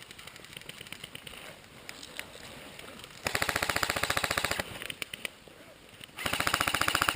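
Airsoft rifle firing full-auto in two rapid bursts, the first over a second long about three seconds in, the second starting about a second after it ends.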